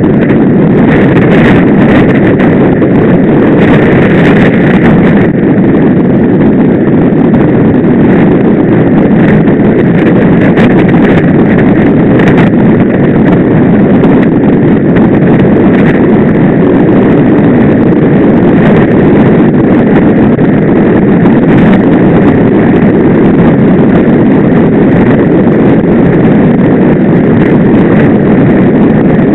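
Steady rumble of a bicycle rolling fast on a paved road, picked up by a bike-mounted camera: tyre and road noise with wind buffeting the microphone and frequent small rattling clicks.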